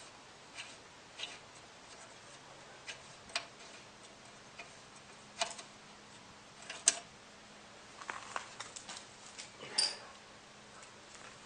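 Faint, irregular clicks and taps of hand tools and metal parts being worked on, with a few sharper knocks scattered through.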